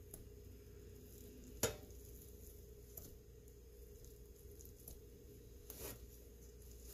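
Metal springform pan base being handled on a plate: one sharp tap about a second and a half in, then a few fainter clicks and a short scuff near the end, over a low steady hum.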